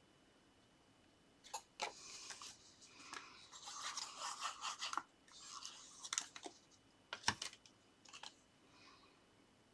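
Paper and card being handled and rubbed down by hand: spells of scratchy rubbing, busiest in the middle, with a few sharp taps.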